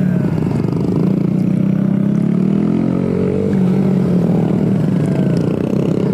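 Kawasaki Z125's small single-cylinder engine running under the rider, its revs rising and falling several times as it is ridden hard around a tight mini track.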